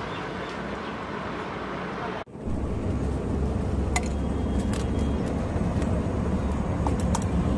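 Steady low traffic rumble at a roadside food stall. After a sudden cut about two seconds in, a few sharp clicks come as eggs are cracked open with a knife over a steel tumbler.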